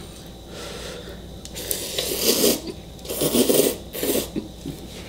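Hot instant ramen noodles being slurped loudly from a bowl in several long, hissing pulls, the longest about a second.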